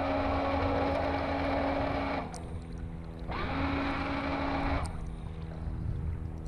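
Sidepower 40SE electric bow thruster running in two bursts: its motor hums and the water churns through the tunnel for about two seconds, stops for about a second, then starts again with a short rising whine and runs for about a second and a half. It is being tested just after installation and is working.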